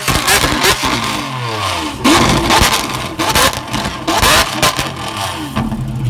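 Lamborghini Aventador SVJ's V12 with a Ryft exhaust being revved loudly in repeated blips, the revs rising sharply and then falling away, with sharp cracks among them. The biggest blips come about two seconds and about four seconds in.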